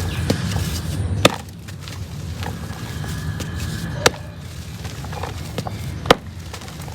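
Soft, slightly damp reused cement being crumbled, with three sharp snaps: about a second in, about four seconds in and near the end.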